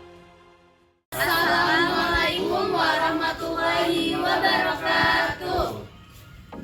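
Background music fading out, then a short, loud sung passage, voices singing over music for about five seconds, dropping away near the end.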